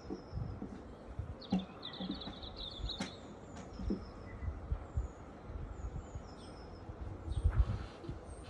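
Small birds calling: short high chirps repeat throughout, with a rapid trill from about one to three seconds in. An irregular low rumble runs underneath and is strongest near the end.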